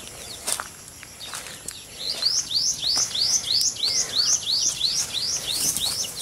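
Chick peeping: a steady, evenly spaced series of high, upward-sweeping peeps, about three a second, starting about two seconds in.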